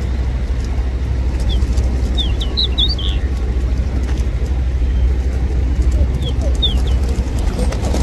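Steady low rumble of road traffic under a flock of feral pigeons, with soft wing flaps as pigeons take off and land. Short high bird chirps come in two clusters, about two to three seconds in and again near the end.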